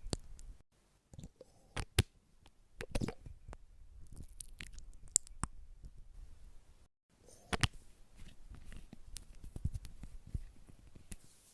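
ASMR skincare trigger sounds made close to the microphone: a string of sharp clicks and taps over soft crackling and rustling, broken twice by brief cuts to silence.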